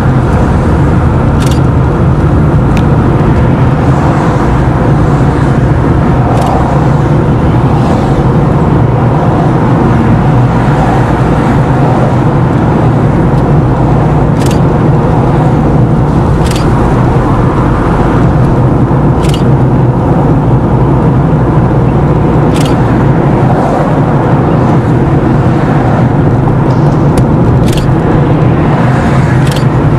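Steady engine and road noise of a car driving, heard from inside, with a low hum and a scattering of short sharp clicks or knocks every second or few.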